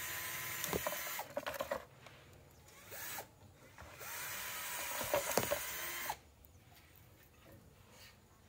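A small high-speed motor runs in two bursts of about two seconds each, a steady whine over hiss with a few knocks, and cuts off suddenly about six seconds in.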